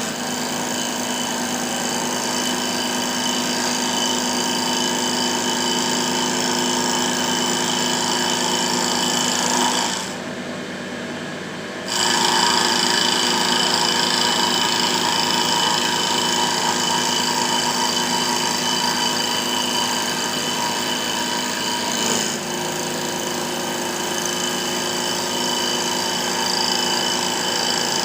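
Mini CNC wood lathe running, its motors giving a steady whine over the hiss of the cutter turning a wooden blank. About ten seconds in the sound drops and dulls for two seconds, then resumes.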